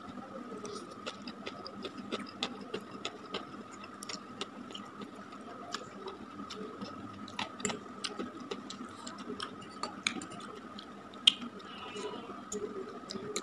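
Close-up eating sounds of a man chewing and slurping fried instant noodles: many irregular sharp clicks and smacks. A faint steady tone runs underneath.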